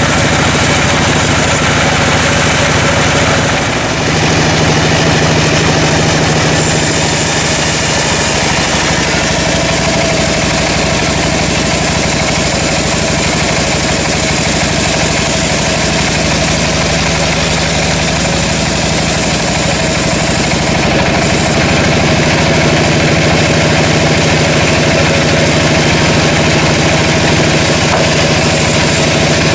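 Engine-driven sawmill running steadily at a constant level, with a brief dip about four seconds in and a higher hiss added from about seven to twenty-one seconds.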